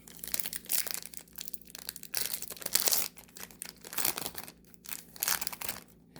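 Wrapper of a trading-card pack crinkling and tearing as it is opened by hand, in irregular rustling bursts with short pauses between them.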